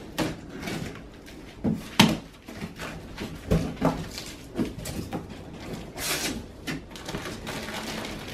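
Cardboard box being cut open and handled: a box cutter working at the taped top, then the flaps knocked and scraped as they are pulled open, with a sharp knock about two seconds in and a brief rustle or rip about six seconds in.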